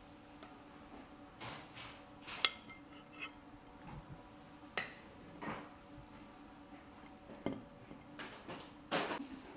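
Metal serving spoon scraping and clinking against a stainless steel pot and a plate as rice is spooned out: scattered light knocks and scrapes, the sharpest a ringing clink about two and a half seconds in.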